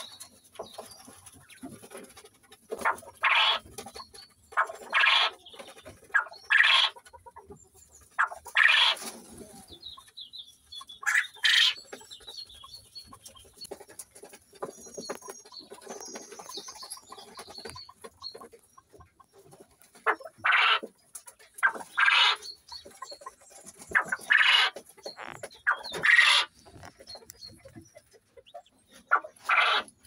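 Male Coturnix quail crowing: about ten short, harsh calls, one every two seconds or so, in two runs with a pause of several seconds in the middle. It is a new male's still somewhat rusty crow.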